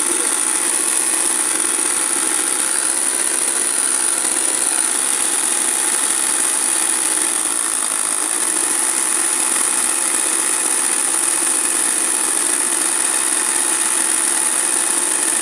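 Motor-driven sewing machine running steadily at speed for machine embroidery, its needle stitching cloth held taut in an embroidery hoop, with a constant high whine.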